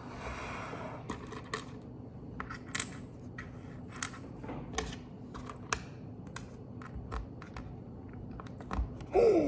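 Lego pieces clicking and clacking as they are handled and pressed together: about a dozen sharp, separate clicks at uneven intervals.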